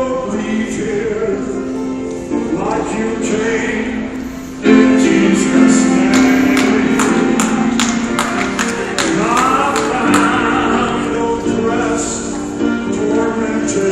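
Gospel worship music with singing, several voices together. It gets louder about five seconds in, with a run of sharp hits over it for a few seconds.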